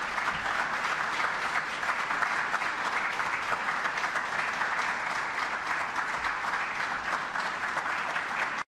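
Audience applauding steadily, a dense even clatter of many hands clapping, which cuts off abruptly near the end.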